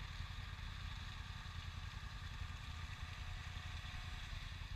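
ATV engines idling steadily, a fast even low pulse with no revving.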